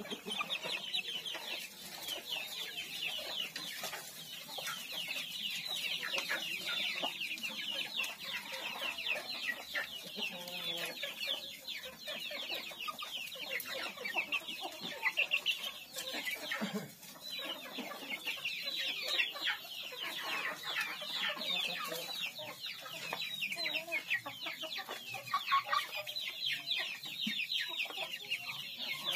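Young kampung chickens peeping continuously, a dense stream of many short, falling chirps overlapping one another.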